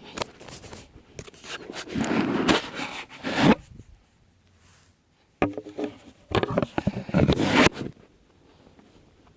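A hiker's footsteps scraping and scuffing on a dirt trail, in two stretches with a short pause between them.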